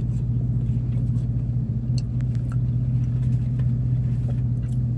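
Vehicle engine idling, heard from inside the cab: a steady low hum with no change in pitch. A few faint clicks come about two seconds in.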